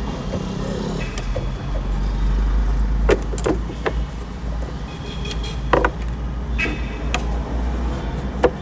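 Metal clicks and clinks of hand tools as the air-conditioning hose fittings are undone from the compressor. A few sharp knocks come through the middle and near the end, over a steady low hum.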